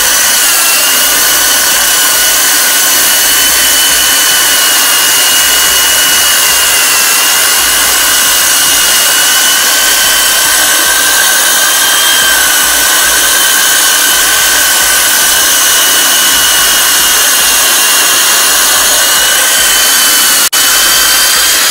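Electric core drill with a 125 mm bit cutting through a brick wall, running continuously under load, together with a vacuum cleaner sucking up the dust at the bit. A steady high motor whine that drifts a little in pitch, broken by one very brief dropout near the end.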